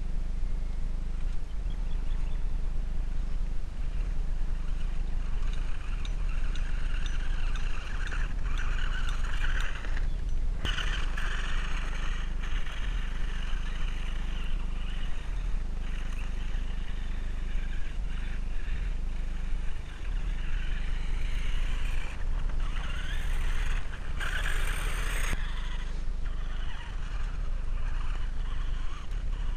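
Electric RC car drivetrain, a brushed RC4WD 45-turn motor and its gears, whining in surges that rise and fall with the throttle over a steady low rumble. The whine briefly cuts out about a third of the way in and is loudest near the end.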